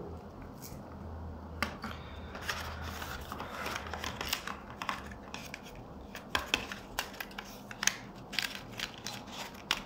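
Faint handling of a phone box and its small accessories: scattered light clicks and taps, with soft rustling between them.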